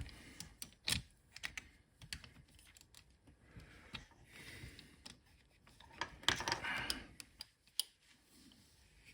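Scattered light clicks and short rustling: small parts being handled and fitted by hand.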